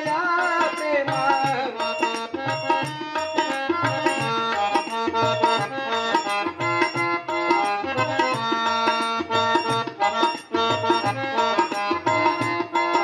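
Devotional music: a harmonium holding steady chords over a steady tabla rhythm.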